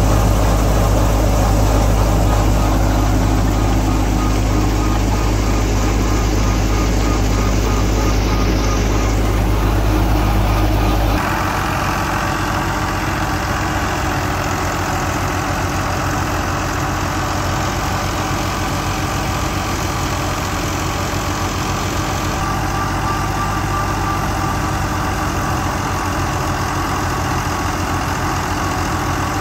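Fiat 480 tractor's three-cylinder diesel engine running steadily under load, driving a wheat thresher, with the thresher's own machinery hum. A deep steady hum dominates at first, then about eleven seconds in the sound changes suddenly to the engine's rapid, even firing beat.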